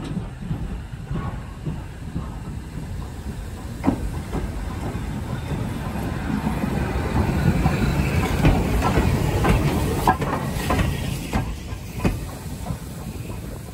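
BR Standard Class 2MT steam locomotive running light, tender-first, at low speed past the listener, with steam hiss and sharp clicks of wheels over rail joints. It grows louder as it passes close by, then fades toward the end.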